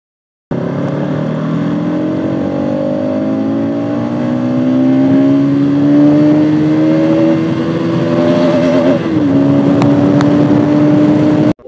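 Single-cylinder engine of a Bajaj Pulsar NS200 motorcycle, heard from the rider's seat, pulling under throttle, its pitch rising steadily as the bike speeds up. Its pitch wobbles and drops briefly about nine seconds in, then holds steady. It starts abruptly about half a second in.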